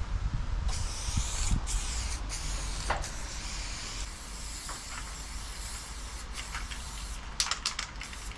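Aerosol spray paint can hissing as paint is sprayed onto a freight wagon's steel side, starting about a second in, with a few short breaks where the nozzle is let go. A few sharp clicks near the end.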